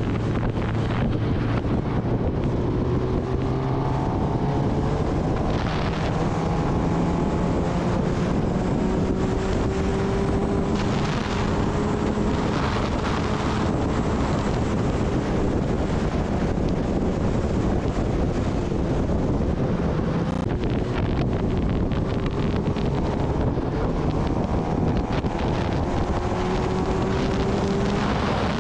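Kawasaki Ninja ZX-10R's inline-four engine running under way, its note climbing slowly and steadily, with a constant rush of wind noise on the microphone.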